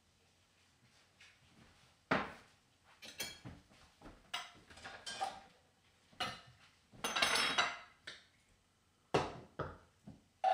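Kitchen cookware clatter: pots, bowls and utensils knocked and handled on a counter, with a few sharp knocks and a longer rattling stretch a little past halfway.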